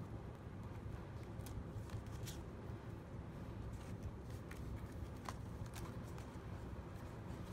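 Faint paper rustling and soft clicks as a leather traveler's notebook's pages are flipped and the notebook is opened and pressed flat, over a low steady hum.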